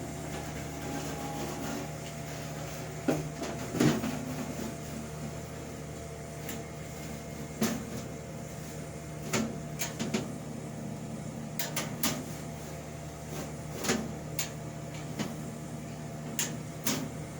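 Mitchell dehumidifier running with a steady hum from its compressor and fan, while its case is fitted on, giving a dozen or so scattered clunks and knocks.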